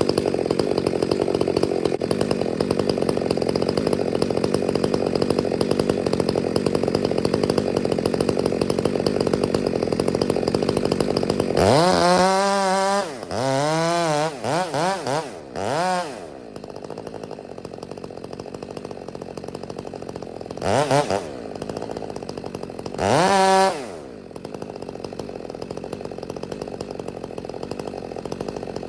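Two-stroke chainsaw held at high speed for about ten seconds, then revved up and down in several quick blips and dropped to a quieter idle, with two more short revs later on.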